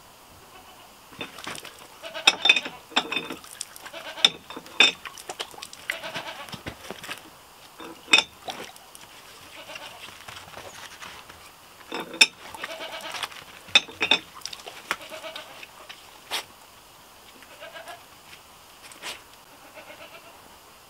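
Tin hand washstand clinking sharply each time its valve stem is pushed up, with water splashing as a face is washed under it. Bleating is heard in clusters, around 2 to 3 seconds in and again around 12 seconds in.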